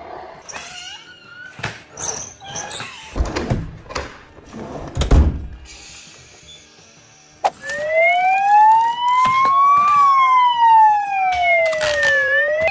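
Toy fire truck's electronic siren wailing: a slow rise and fall in pitch that starts about halfway through and begins rising again near the end. Before it, clicks and two thumps of the plastic toy being handled.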